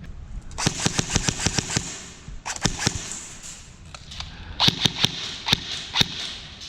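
Airsoft guns firing: a rapid burst of about a dozen sharp shots, a shorter burst about two and a half seconds in, then several single shots between about four and a half and six seconds in.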